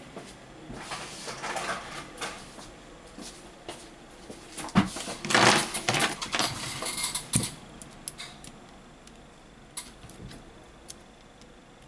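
Hands handling a smartphone on a work mat and fitting plastic spring clamps to hold its freshly glued back cover: scattered clicks and small knocks, with a louder stretch of rustling and knocking in the middle.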